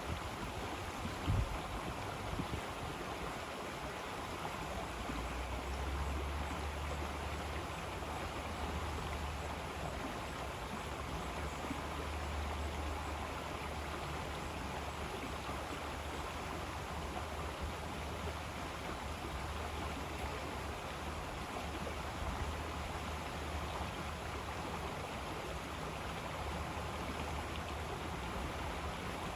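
River water flowing steadily in a continuous rushing wash, with a low rumble underneath that strengthens about six seconds in.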